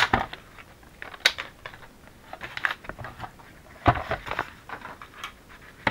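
Brown paper-bag paper handled at a craft table: rustling and sliding, with irregular small clicks and taps from a sliding paper trimmer and a sharp click at the start. A heavier thump about four seconds in as something is set down.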